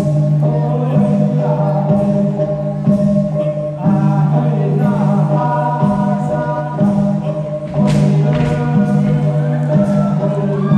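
A group singing together over music, with a low accompaniment that pulses about once a second.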